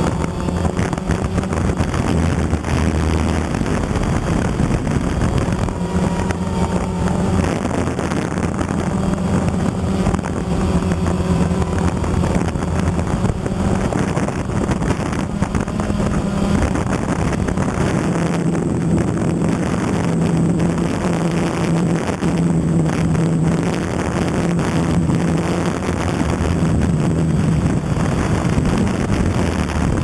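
Phantom quadcopter's motors and propellers droning steadily, the pitch shifting up and down as it is buffeted by strong gusts, with wind noise on the microphone.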